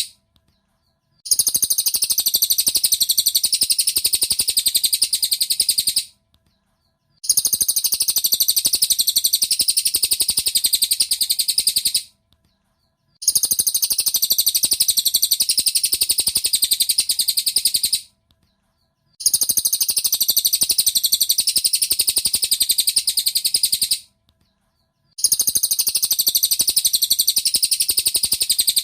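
Recorded song of a cililin bird: dense, rapid, high-pitched chirping in bouts of about five seconds, each broken off by a second of silence and repeating at an even pace, as in a looped training recording.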